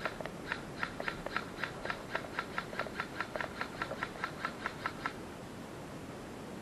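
A quick, even series of about twenty short sharp clicks, about four a second, which stop about five seconds in.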